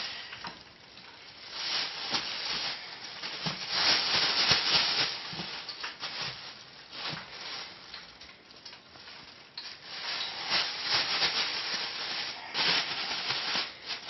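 Raw chicken being pressed and turned in a dry breading of flour and cornstarch: an irregular scratchy rubbing that comes in uneven bursts.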